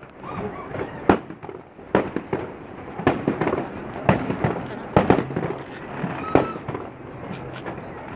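Aerial fireworks shells bursting, a sharp bang about every second with crackling between the bangs.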